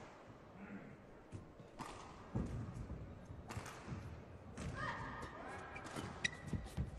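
Indoor badminton court between rallies: players' shoes squeaking and thudding on the court mat, with scattered sharp taps. A few short squeaks come about five to six seconds in.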